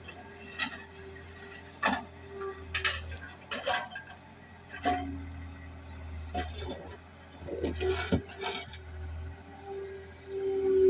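Skid steer working broken concrete: a steady low engine drone with a mid-pitched tone that comes and goes, and irregular sharp clinks and knocks of concrete chunks against the bucket and each other.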